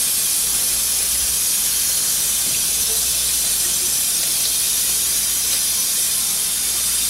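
Kitchen faucet running in a steady stream into a stainless steel sink, splashing over napa cabbage leaves as they are rinsed by hand: a constant hiss of running water.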